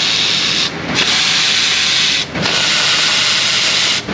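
Compressed-air blow gun hissing in long blasts of about a second and a half, with brief breaks between them.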